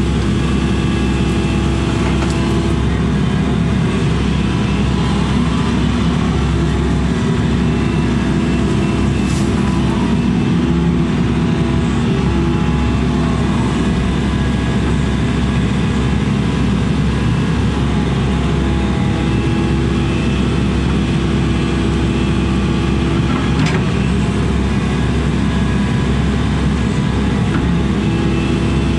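Excavator's diesel engine running steadily while the machine digs, heard from inside the cab, with pitched tones from the engine and hydraulics that come and go as the controls are worked.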